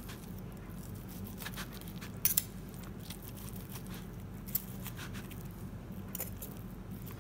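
Kitchen knife slicing through smoked turkey leg meat, the blade clicking sharply against the cutting board a handful of times, loudest as a quick pair a little over two seconds in, over a low steady hum.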